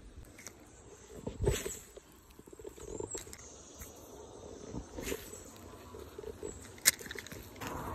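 Handling noise from the angler's hands on the phone and fishing rod: scattered soft bumps and clicks, with one sharp click about seven seconds in. A broad rushing noise rises near the end.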